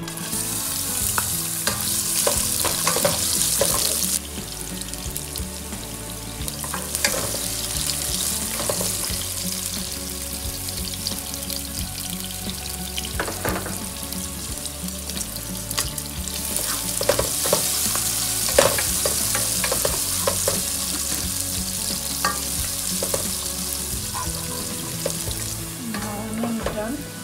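Sliced onions sizzling as they fry in hot oil in a nonstick pot. The sizzle is loudest for the first few seconds as the onions go in, and rises again in the middle. A wooden spatula stirring them knocks and scrapes against the pan now and then.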